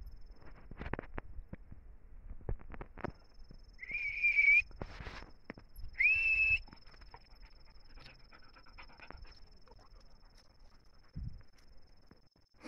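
Footsteps scuffing over a dirt slope with hunting hounds moving close by, broken twice by a short, high, steady whistle, the two about two seconds apart.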